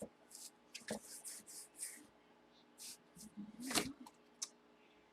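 Trading-card packaging being opened and handled: soft rustles and crinkles in short scattered bursts, with a couple of light clicks.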